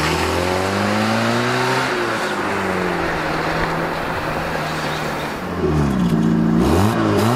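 Fiat Uno's 1.0 FIRE four-cylinder petrol engine pulling away under acceleration: its pitch rises, drops at a gear change about two seconds in, then holds steady. Near the end the engine is revved up and down several times in quick blips.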